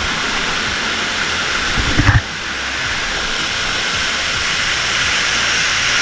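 Waterfall pouring close by, a steady rushing hiss, with a short low thump about two seconds in.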